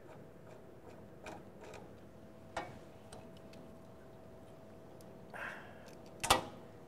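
Scattered light metallic clicks and taps from a tool being worked against metal parts inside a centrifuge's tub, with a short scrape about five and a half seconds in and a sharp metal clank just after six seconds, the loudest sound. A faint steady hum runs underneath.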